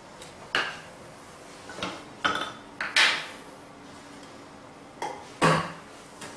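Pine bow-drill fireboard and gear handled on a hard floor: about seven short, sharp wooden knocks and clatters at uneven intervals, loudest about three seconds in and again a little after five seconds.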